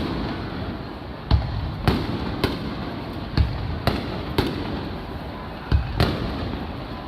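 Aerial firework shells bursting overhead: about eight sharp booms at uneven intervals, each with a short low rumble trailing after it.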